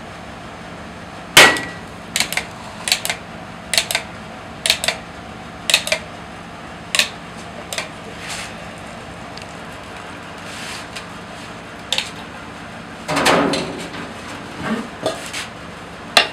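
Sharp metallic clacks, often in quick pairs, from the hinged cast-iron taiyaki molds being handled and closed, over a steady machine hum. A longer metal clatter comes a little before the end.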